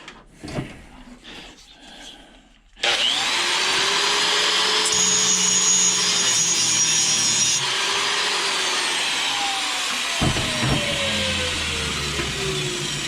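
A power tool starts suddenly about three seconds in and runs on steadily, working against metal, with a whine that slowly falls in pitch near the end.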